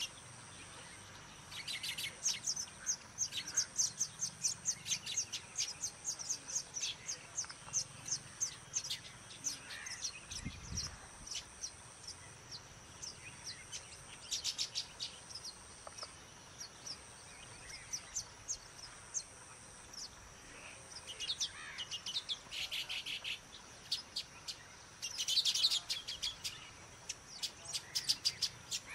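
Weaver birds chirping: series of short, high-pitched chirps at about three or four a second, coming in several bouts, with the densest and loudest burst about three quarters of the way through.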